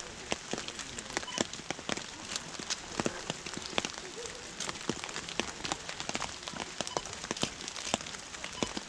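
Steady rain: an even hiss with many irregular sharp ticks of drops landing close by.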